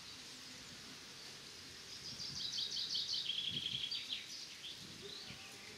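A small songbird singing one fast trilled phrase, high-pitched and quickly repeated, starting about two seconds in and lasting about two seconds, followed by a few scattered chirps over a faint outdoor background.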